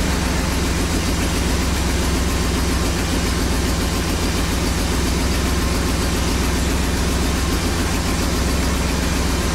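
Twin-turbo Jaguar V12 idling steadily at about 850–950 rpm under Megasquirt engine management, its ignition timing newly corrected.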